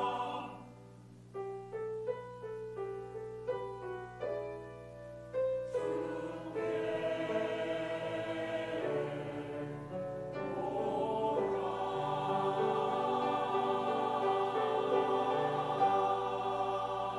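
Church choir singing the close of a Korean-language hymn with piano. After a brief dip, a short run of single piano notes plays. The choir then comes back in with long held notes and builds to a full, sustained final chord.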